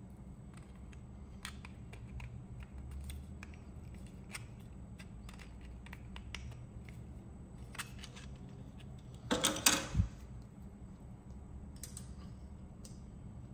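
Small clicks and scrapes of 3D-printed plastic parts being handled and pressed together, with a short burst of crackling snaps about two-thirds in that ends in a sharp knock.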